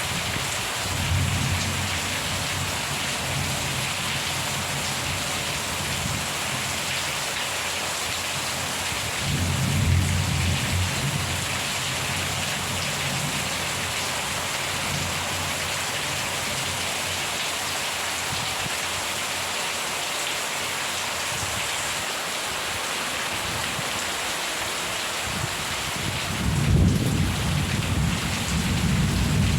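Steady, heavy rain with three rolls of low thunder: one about a second in, a louder one around ten seconds in, and another near the end.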